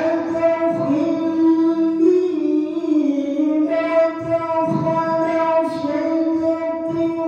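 A male qari reciting the Quran in a high, melodic voice, holding one long phrase with slight wavers in pitch that dips a little around the middle and climbs back up.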